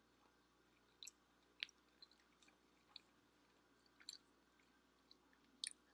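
Quiet, close-up wet chewing of a mouthful of saucy shell pasta, with a handful of soft, sharp mouth clicks and squelches spaced irregularly.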